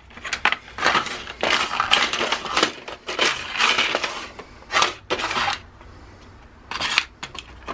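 Metal washers clinking and rattling in a clear plastic parts-bin drawer as it is pulled out and rummaged through, with clattering for about five seconds, then a few sharp clicks near the end.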